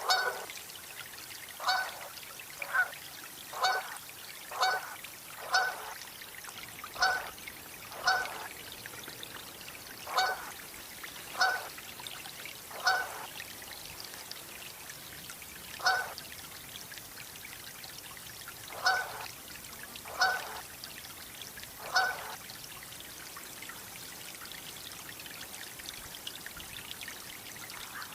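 Canada goose honking: about fifteen short, single honks at uneven gaps of roughly one to three seconds, falling quiet a little over twenty seconds in.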